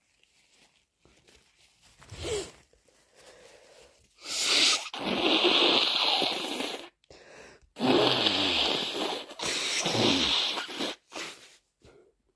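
A person with a heavily congested, snotty nose from a cold blowing it hard twice, each blow lasting over two seconds, with a few short sniffs before and after.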